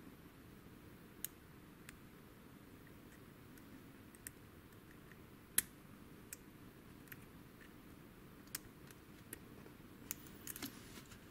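Faint, irregular metallic clicks of a lock pick working the pins inside a WILKA pin-tumbler cylinder with security pins, about a dozen in all, the loudest about halfway through and a quick cluster near the end.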